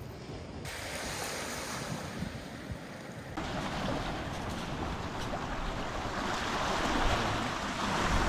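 Small sea waves washing onto a pebble shore, with wind; the surf hiss steps up twice and swells louder toward the end.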